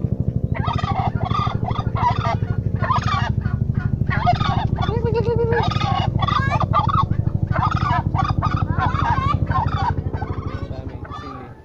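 Male domestic turkey gobbling over and over, about two calls a second, while strutting in display, which the owner takes for anger at a stranger. A steady low pulsing hum runs underneath and fades out near the end.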